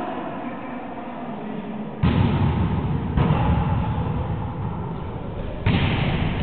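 A volleyball being hit three times in a rally, each hit a sharp slap followed by a long echo off the walls of a large gymnasium.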